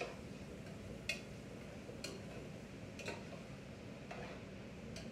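Sharp ticks at a steady pace of about one a second, over a faint steady low hum.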